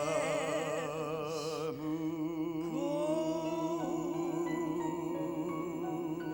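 Sung voices holding the song's long closing notes with wide vibrato, stepping up in pitch about three seconds in, over orchestral accompaniment.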